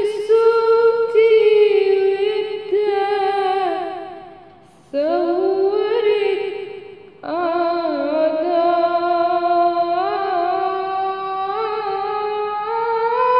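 A woman singing an Arabic ibtihal (devotional supplication) in long, drawn-out melismatic phrases with a wavering ornamented voice. There are three long phrases: the first fades away about four seconds in, the next starts about five seconds in, and the last starts about seven seconds in and is held to the end.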